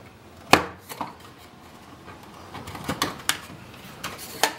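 Hard wooden knocks and clacks as the hinged lid of a small wooden box is handled, with the loudest knock about half a second in and a quick run of knocks around three seconds in.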